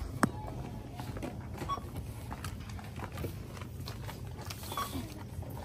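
Checkout clatter from a shopping cart and items being handled: a sharp knock just after the start, then scattered small clicks and rattles over a steady low hum. Two short beeps, about three seconds apart, come from the register scanner as items are rung up.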